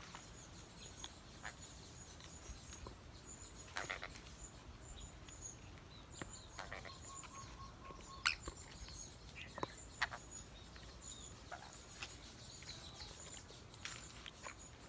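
Faint, high-pitched bird chirps: short two- and three-note peeps recurring every second or so, with scattered light clicks and taps between them.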